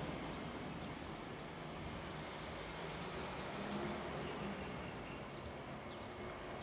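Quiet tropical rainforest ambience: a steady hiss with scattered short, high chirps from wildlife.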